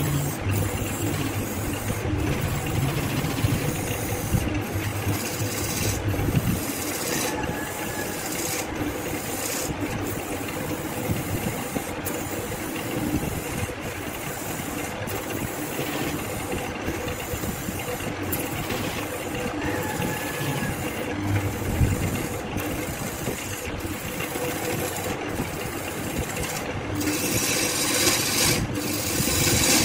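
Wood lathe spinning a blue resin blank while a turning tool cuts it: a steady scraping rasp of shavings peeling off over the lathe's running hum.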